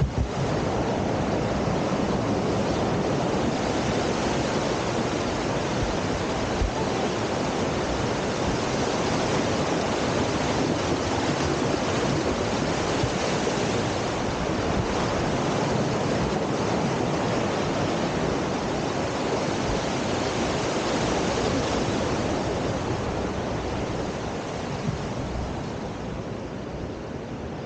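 Steady rush of fast-flowing water, a mountain stream or river, easing off a little near the end.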